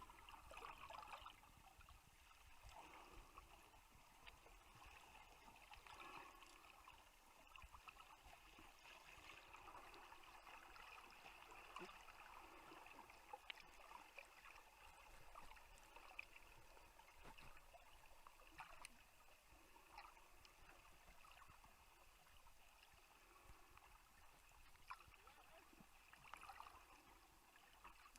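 Faint, muffled water sloshing and gurgling picked up by a snorkeller's waterproof camera, with scattered small clicks.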